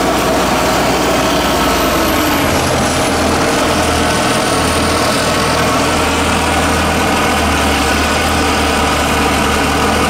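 Vermeer SC1152 stump grinder's engine running steadily at close range, with a high whine that falls in pitch over the first few seconds and then holds steady.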